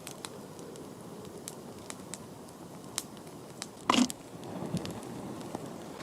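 Campfire crackling, with scattered sharp pops and a brief louder knock about four seconds in.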